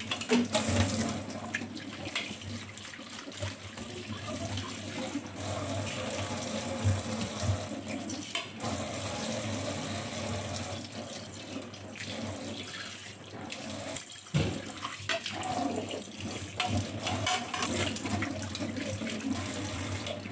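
Water running from a tap into a sink while dishes are washed, with scattered clinks and knocks of dishes throughout and one sharper knock about fourteen seconds in.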